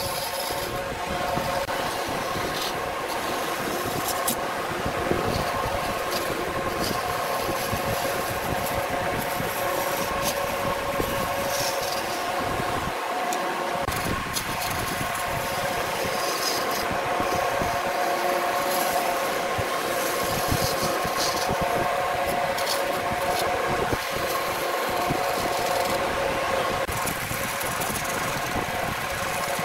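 Wood lathe running with a steady motor whine while a hand-held turning tool cuts the spinning wood, giving a continuous rough scraping with small ticks as shavings come off.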